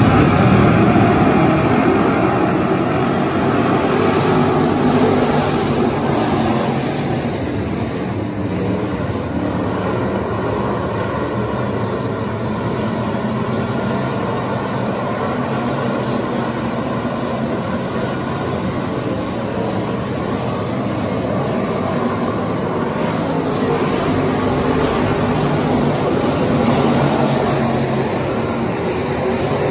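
A pack of pure/factory stock race cars racing on a dirt oval: a loud, continuous mix of engines at racing speed. It is loudest in the first few seconds, eases a little, then swells again near the end as a car passes close.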